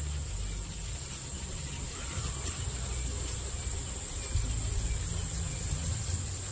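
Steady high-pitched insect drone, such as crickets, with uneven low rumble from wind or handling on a phone microphone that grows stronger in the second half.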